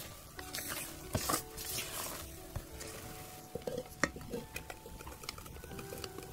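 Spatula scraping and folding thick soufflé batter against a stainless steel bowl, with a few light clicks about four seconds in, over soft background music.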